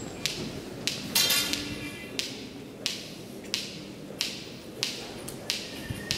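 Footsteps on a hard stone floor at an even walking pace, about three steps every two seconds. A brief high-pitched tone sounds about a second in.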